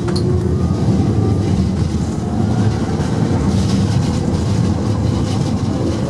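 Ganz tram running along its track, heard from inside the car: a steady low rumble of wheels on rail and the car's running gear.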